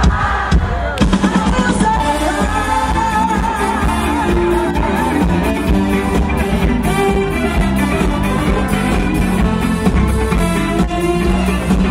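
Live band playing an upbeat disco number, with a steady drum-and-bass beat, horns and keyboards, and singing over it.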